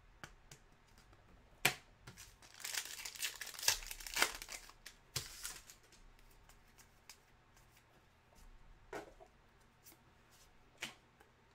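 A trading-card pack wrapper being torn open and crinkled, a rustling stretch about two to four and a half seconds in. Then a few faint clicks as the cards are handled.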